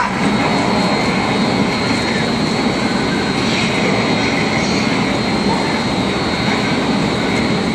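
Hurricane simulator booth's blowers driving a loud, steady rush of wind.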